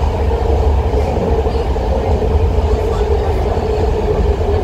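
Inside a 1972 Rohr A car of the BART legacy fleet running at speed between stations: a steady, loud low rumble from the wheels and running gear, with a steady mid-pitched hum on top.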